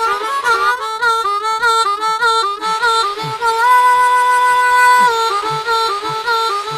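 Blues harmonica playing an instrumental break in background music: bent notes, a fast warbling trill, then one long held note and a run of short choppy notes, over faint low beats.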